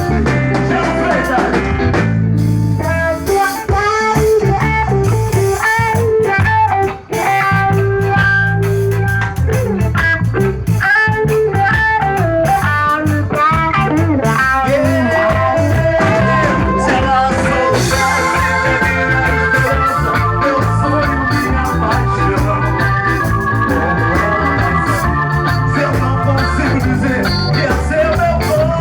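Live band playing an instrumental passage of a Brazilian pop (MPB) song, a guitar carrying the melody with bent notes over bass and drums, with no singing.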